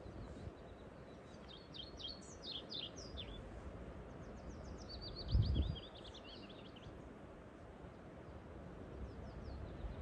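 A songbird sings two short phrases of quick, descending high chirps, the second a rapid run of notes, over a steady low outdoor rumble. About halfway through, a brief low thump is the loudest sound.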